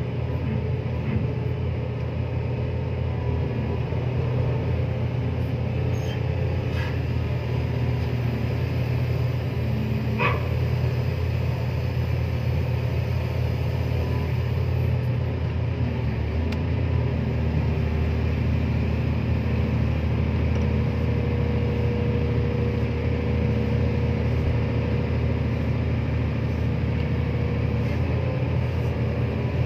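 Diesel engine of a ship-mounted Komatsu excavator running steadily as it works a clamshell grab discharging bulk cargo, a deep even rumble. A faint steady tone joins it in the later part, and there is one brief higher sound about ten seconds in.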